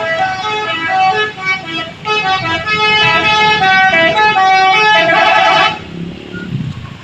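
A Duta Prima bus's multi-tone telolet horn plays a fast melody of short notes. It ends on a held, wavering note and cuts off about a second before the end, leaving quieter background noise.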